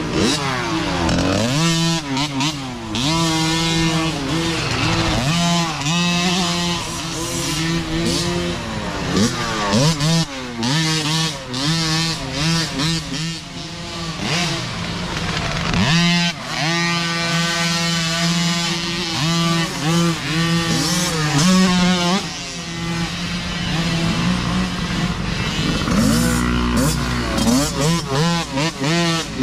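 Small youth micro dirt bikes revving and accelerating up a muddy trail one after another. Their engine notes rise and fall as the throttles open and close, and overlap over a steady low engine drone.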